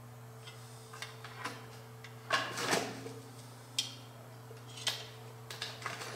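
Light metallic clicks and clinks of steel parts being handled and fitted at a machined bore in a Kubota diesel engine block, about nine scattered knocks with the loudest pair a little past two seconds in. A steady low hum runs underneath.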